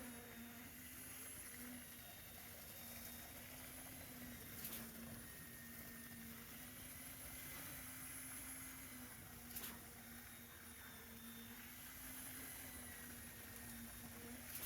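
Putzmeister concrete pump's engine running steadily, with a sharp knock about every five seconds.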